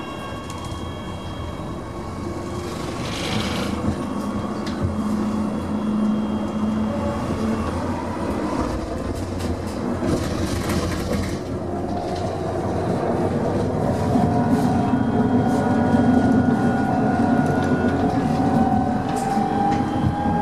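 Bremen GT8N low-floor tram heard from inside while moving, with running gear rumbling on the rails. Its traction drive whine rises in pitch and the sound grows louder over the second half as the tram gathers speed. Two short hisses come through about three and ten seconds in.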